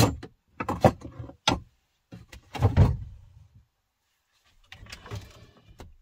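A slide-out drawer and cookware being handled in a small van kitchen: a run of clunks and knocks, the loudest about halfway through, then softer rustling near the end.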